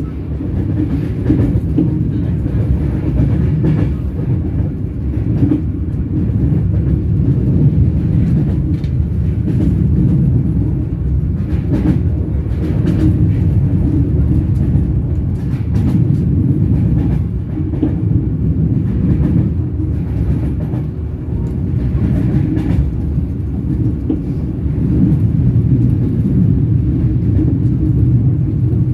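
Train wheels running along the rails: a steady low rumble, with faint clicks now and then.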